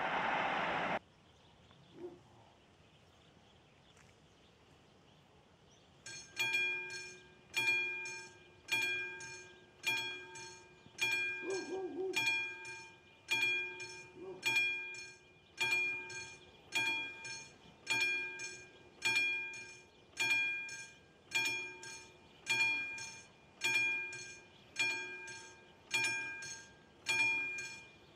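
Level-crossing electronic warning bell ringing in a steady, even rhythm, a little faster than one ding a second. It starts about six seconds in and warns that a train is approaching. In the first second, passing-train noise cuts off abruptly.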